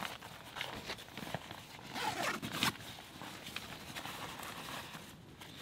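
Rustling and scratchy handling noises with a few clicks, loudest in a run of rasps about two to three seconds in.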